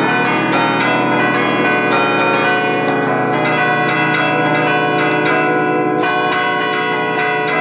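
A concerto of church bells, cast by Carlo Ottolina of Seregno in 1951, played by hand from a lever keyboard: clappers strike the bells in quick succession, several strokes a second, and each ringing tone overlaps the next to form a melody.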